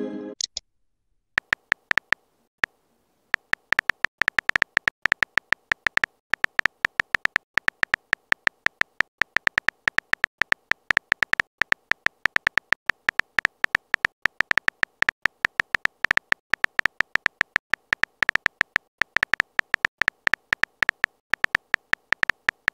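Simulated keyboard typing from a texting-story app: rapid, irregular short tapping clicks, each with a slight beep-like tone, one per typed letter. At the very start a brief message-sent sound fades out.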